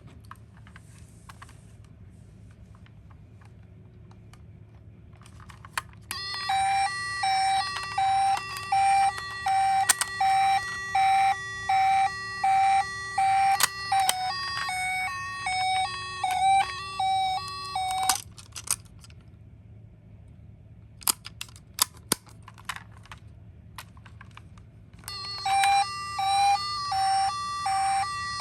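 Toy ambulance's electronic siren sounding a repeating two-tone pattern through its small speaker, starting about six seconds in, cutting off near the middle and starting again near the end. A few sharp plastic clicks come in the gap.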